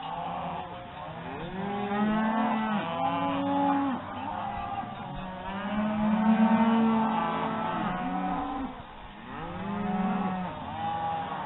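Several cattle mooing and bawling over and over, long drawn-out calls overlapping one another at different pitches.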